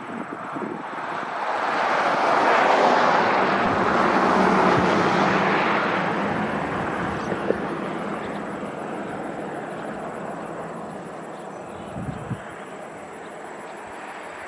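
Rushing engine noise of an aircraft passing overhead, swelling over the first couple of seconds, loudest a few seconds in, then slowly fading away.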